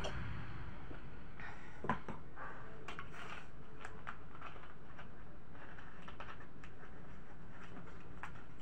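Crackling clicks of a plastic soda bottle being gripped and twisted in the hands, with one sharper knock about two seconds in.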